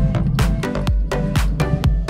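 Electronic dance music with a steady thumping beat and heavy bass.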